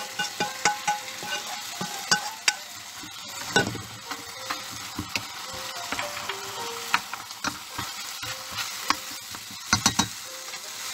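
Beef shanks and tomato, onion and garlic sizzling in a hot stainless steel stockpot while being stirred with a ladle, the ladle knocking and scraping against the pot again and again, with three quick knocks near the end.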